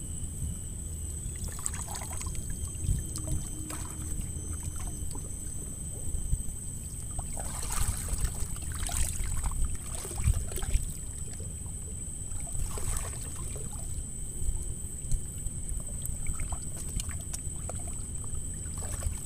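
Water splashing and trickling in a few short bursts at the pond's edge, the strongest about halfway through and another a little later, over a steady low rumble and a thin high whine.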